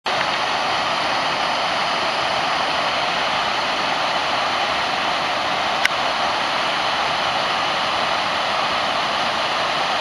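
Garden waterfall pouring over a rock ledge into a pond: a steady rushing of falling water. A single brief click about six seconds in.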